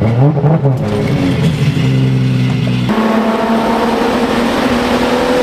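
Toyota Supra's straight-six engine under acceleration, heard from inside the open cockpit: the revs climb sharply at the start, then after a change about three seconds in the engine pulls on with its pitch rising slowly.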